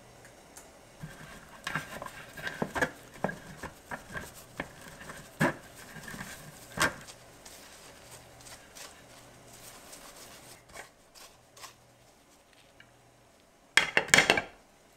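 Sponge cake crumbs being pressed through a stainless steel mesh sieve into a glass bowl, with irregular scraping and light clinks of the metal mesh. About a second before the end comes a quick cluster of sharp, loud knocks as the sieve is tapped against the bowl.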